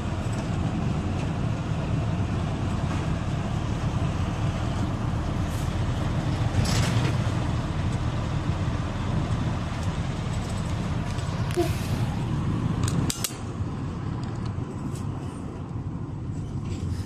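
Steady low rumble of a vehicle driving along a road, with a few sharp clicks in the middle; the rumble drops in level suddenly about two-thirds of the way through.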